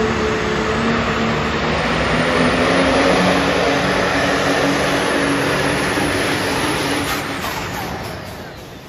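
4x4 diesel pickup truck pulling at full throttle, its engine running loud and steady and rising a little about two seconds in, then easing off and fading from about seven seconds in as the pull ends.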